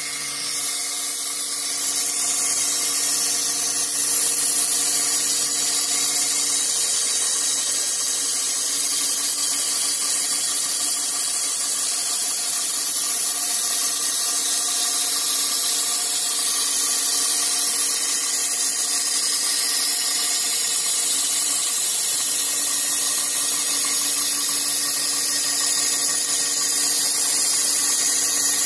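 Milling machine running steadily: a steady machine hum with several fixed tones under a loud high hiss.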